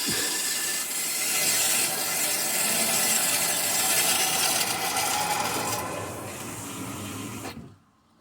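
Water rushing through a just-opened valve into a well pressure tank: a steady hiss that eases a little about six seconds in and cuts off suddenly near the end.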